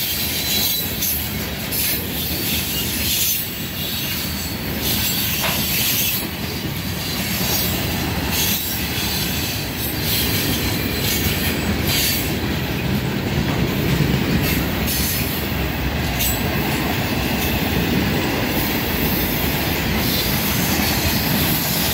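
Norfolk Southern mixed freight train's cars (tank cars, hoppers, boxcars and gondolas) rolling past: a steady rumble and clatter of steel wheels on the rails.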